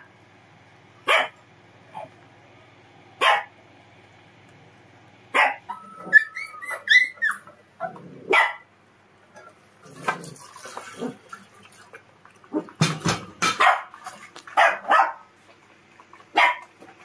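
Dogs barking from their crates, short single barks every second or two, coming closer together near the end, with a brief run of rising and falling whines a few seconds in.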